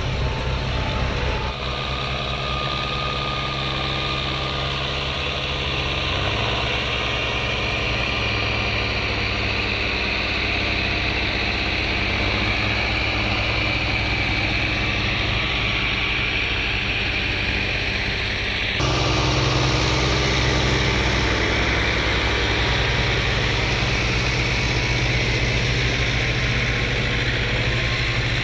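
Farm tractor diesel engines running steadily as they pull. The sound changes abruptly about two seconds in, and a louder engine takes over about two-thirds of the way through.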